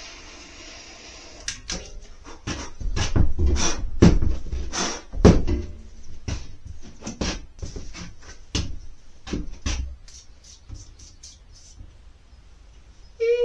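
Repeated knocks and bangs, about two a second, from hammering on a stuck part of an ATV. They start about a second and a half in, are loudest in the middle and thin out to lighter taps near the end.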